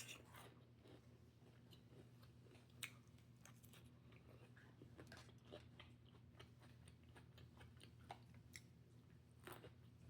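Faint chewing of a mouthful of loaded green salad, with a few soft crunches and clicks scattered through, over a steady low hum.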